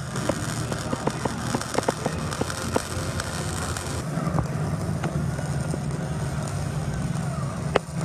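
Metalworking shop noise: scattered sharp metallic knocks and clanks over a steady hiss, then, after an abrupt change about halfway, a steady low machinery hum with only occasional knocks and one sharp click near the end.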